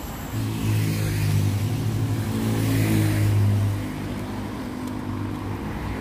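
Road traffic: a passing motor vehicle's engine hum and tyre noise swell for about three seconds, then settle back to a steady lower traffic noise.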